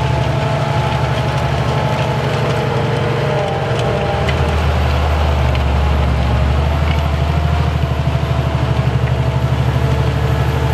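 Fendt 1050 Vario tractor's big six-cylinder diesel running steadily under load while pulling a disc harrow through the field. It grows louder about four seconds in as the tractor comes close.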